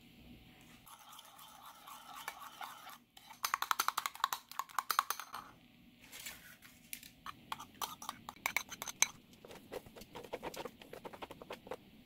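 A metal spoon stirring egg batter in a ceramic bowl: faint scraping, then a couple of seconds of fast clinking strokes against the bowl. After a short pause, slower clinks and scraping as the batter is scraped out and spread over parchment paper.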